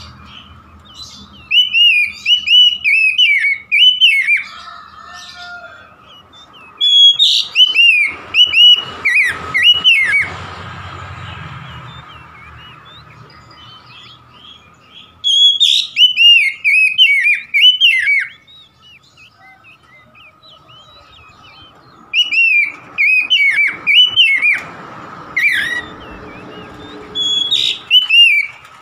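Oriental magpie-robin singing: four loud bouts of quick, ringing whistled notes that swoop up and down, with pauses of a few seconds between bouts.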